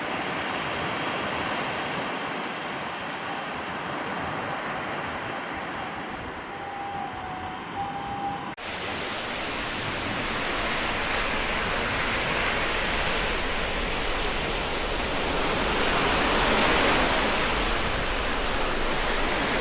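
Surf breaking and washing up the shore, a steady rushing noise of waves. About eight and a half seconds in, a cut leads to a louder, brighter stretch of the same surf.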